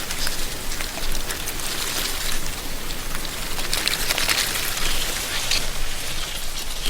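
Wind rustling dry autumn leaves in a tree canopy: a steady, crackling hiss of many small leaf clicks that swells with the gusts.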